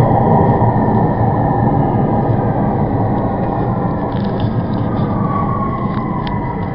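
Underground train carriage heard from inside while moving: a dense rumble and rattle that slowly grows quieter, with a whine gliding down in pitch in the second half as the train slows.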